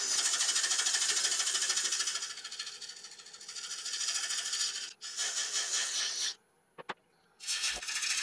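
A turning tool cutting a spinning block of hard yew on a wood lathe: a rough, fast-rippling scraping hiss of the edge shaving the wood. It eases off about three seconds in, breaks off twice, and stops for about a second near the end, with a single click in the pause.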